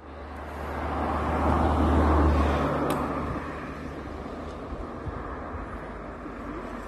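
A road vehicle passing close by: a low engine rumble and road noise swell over about two seconds, then fade to a steady background hiss. There is a single sharp click about three seconds in.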